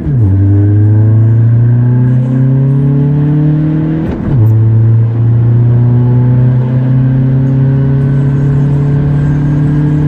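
Volkswagen TDI turbodiesel engine under hard acceleration, heard from inside the cabin. Its note drops at an upshift right at the start and again about four seconds in, and after each shift it climbs steadily in pitch as the revs build.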